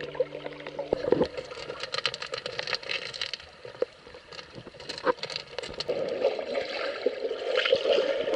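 Canoe on a river: water splashing and gurgling around the boat and paddles, with a few sharp knocks. The last held note of a song cuts off about a second in.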